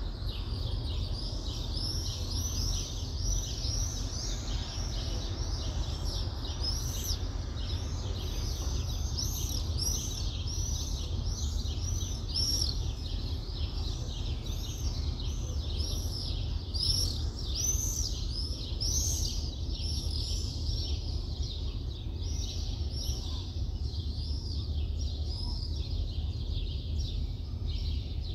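Birds chirping in a rapid, overlapping run of short high chirps, several a second, thinning somewhat toward the end, over a steady low rumble of city background noise.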